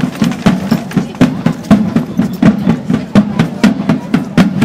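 Field drum beaten in a steady marching rhythm, about four strokes a second, each stroke ringing briefly.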